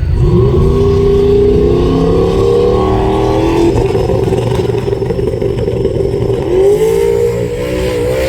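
A drag-racing car's engine revving hard as it launches and pulls down the strip: the pitch climbs sharply at the start, holds high, then climbs again near the end. A steady low rumble runs underneath.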